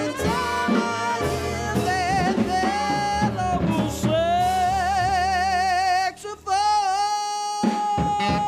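Jump-blues jazz band with a male singer belting long held notes with wavy vibrato over drums and upright bass. About six seconds in there is a short break, then the singer holds one long high note while the band stops and punches a few sharp hits under it.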